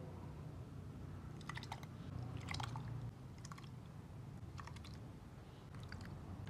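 A metal ladle scooping wet, mashed watermelon pulp from a stone mortar and pouring it into a hollowed watermelon shell: faint squishing and dripping with a few light clicks of the ladle against stone.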